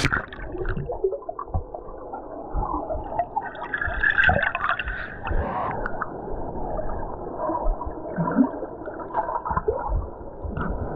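Muffled gurgling and sloshing water heard underwater, with irregular bubbling and knocks and nothing high-pitched.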